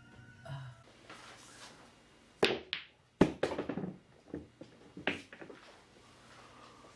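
Billiard balls knocking together and against the table with sharp clacks. The loudest is a hard click about three seconds in, followed by a quick run of softer knocks, with another knock about two seconds later.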